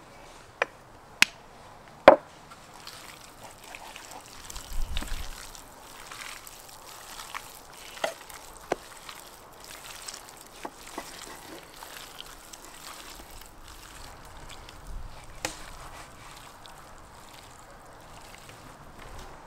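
Cubed raw bison meat being worked by hand in a stainless steel tray: wet squelching and shifting of the chunks, with scattered sharp clicks and knocks, the loudest about two seconds in.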